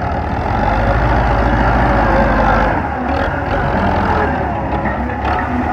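Belarus MTZ tractor's diesel engine running under load while its front blade pushes through mud. The low engine note eases slightly about halfway through.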